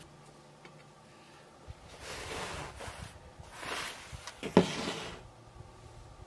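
A cloth kitchen towel rustling as it is spread over the dough, in a couple of swells lasting about three seconds, with one sharp knock partway through.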